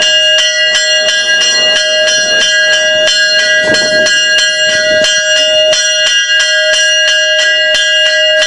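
A single bell struck rapidly and evenly, about three strokes a second, in a loud ringing peal.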